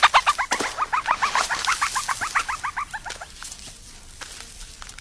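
Meerkat giving a rapid run of short chirping calls, about eight a second, growing fainter and dying away about three seconds in.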